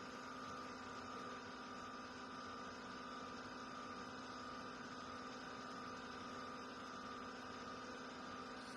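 Single-serve coffee maker brewing, a faint, steady hum from its pump that does not change.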